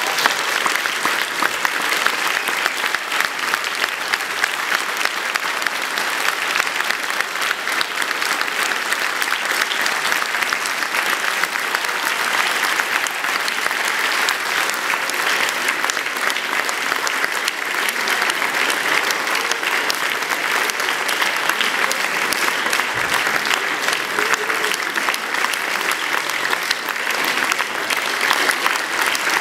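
Audience applauding: a long, even round of many hands clapping.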